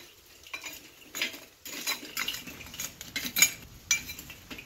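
Metal spatula raking and spreading lit charcoal in the charcoal ring of a Weber Smokey Mountain's bottom bowl: irregular scraping and clinking of coals against metal.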